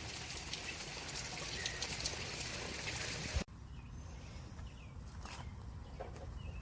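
Steady rain falling, a continuous hiss with scattered drops ticking. About three and a half seconds in it cuts off suddenly, leaving a much quieter hush with a few faint chirps.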